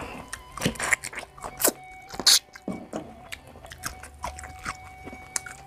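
Close-miked eating sounds: chewing and crunching food by mouth, a quick, irregular run of sharp crisp bites and wet clicks, loudest about two seconds in.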